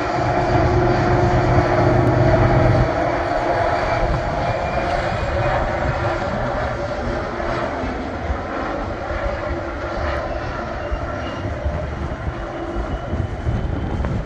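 Diesel locomotive of a commuter train droning steadily as it hauls its coaches across a bridge, with the rumble of the train rolling. The engine hum is strongest for the first three seconds or so, then gives way to a broader, even rumble.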